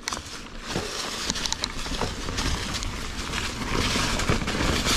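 Ibis Ripmo AF mountain bike setting off downhill, its tyres rolling and crunching over dry fallen leaves on singletrack. The noise grows louder as it picks up speed, with a few quick clicks about a second and a half in.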